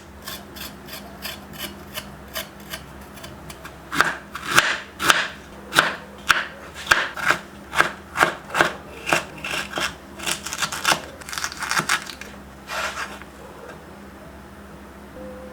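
A knife peeling and cutting fresh ginger root by hand: a run of short scraping strokes, about two a second, loudest in the middle and stopping a couple of seconds before the end.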